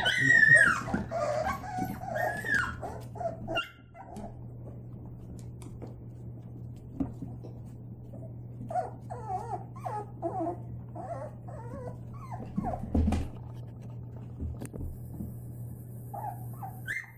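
White Labrador puppies whimpering and yipping: a burst of high whines in the first few seconds, then a run of short whimpers about halfway through and another near the end.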